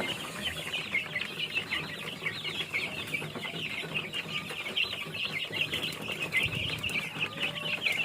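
A coop full of chicks and young chickens peeping continuously, many short high chirps overlapping with no break.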